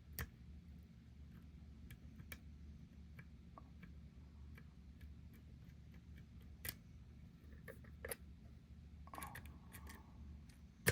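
Faint, scattered metallic clicks and ticks of a dimple pick working the pins inside an Abus 751B/30 dimple padlock, a sharper click every second or two with a quick cluster near the end.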